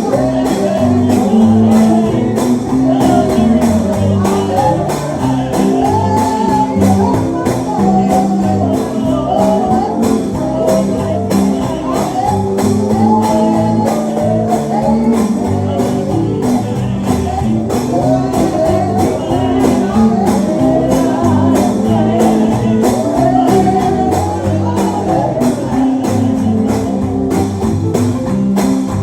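Live church gospel music: voices singing a melody over sustained instrumental chords, with a tambourine shaking on a steady beat.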